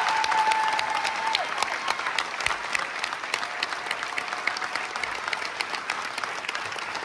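Theatre audience applauding, a dense patter of many hands that slowly eases. A held high note sounds over the applause at the start and stops about a second and a half in.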